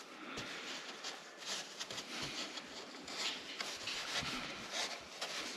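Hands rubbing and pressing felt carpet fabric onto a glued board edge, pulling it tight: a soft, irregular scratchy rubbing.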